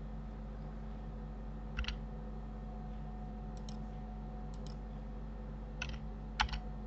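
Sharp clicks of computer mouse buttons and keys, coming in quick pairs: one pair about two seconds in, two faint pairs in the middle, and a louder cluster near the end. A steady low electrical hum runs underneath.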